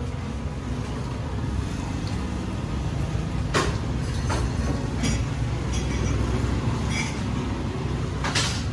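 Steady low rumble of street traffic, with a few sharp clicks and knocks from the vendor working at the food stall's counter, the clearest about three and a half seconds in and again near the end.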